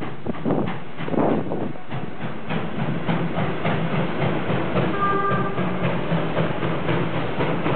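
Er- and L-class steam locomotives shunting at low speed: a few noisy puffs, then a steady rhythmic beat with regular clatter, and a brief high tone about five seconds in.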